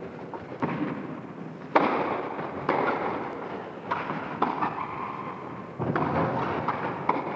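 Tennis rally: the ball struck back and forth by rackets and bouncing on the court, about seven sharp hits roughly a second apart, each trailing off in a short ringing tail.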